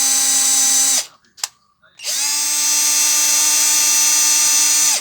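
Hammer PLI12 12-volt cordless drill/driver running free in reverse with a steady motor whine, now reversing properly after repair. It spins up, runs about a second and stops, a click follows, and it spins up again about two seconds in.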